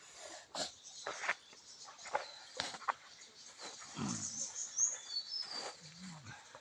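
Irregular wet clicks and smacks of someone eating and chewing, with two brief low vocal sounds about four and six seconds in.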